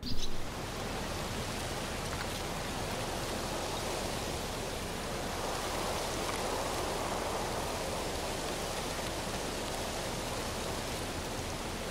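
Steady rushing noise with no distinct events, even from low to high pitch, swelling slightly around the middle.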